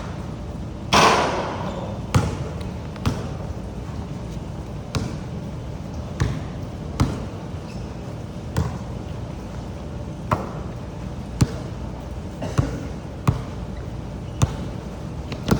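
Pouring rain as a steady hiss, with sharp knocks about once a second, irregularly spaced; the loudest comes about a second in.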